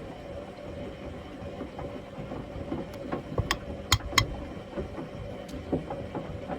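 Logik L712WM20 front-loading washing machine tumbling a wash load in water, its motor running with a steady whine and soft irregular knocks from the drum, with a few sharp clicks between three and four and a half seconds in.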